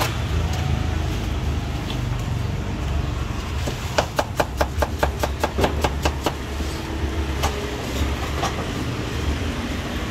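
A cleaver striking a thick round wooden chopping block as it slices a cucumber: a fast run of sharp chops, about five or six a second, starting about four seconds in, then a few scattered chops. A steady low traffic rumble runs underneath.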